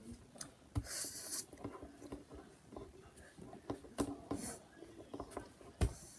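Light handling noises at a table: scattered soft clicks and knocks, with a brief scratchy rub about a second in and again just after four seconds.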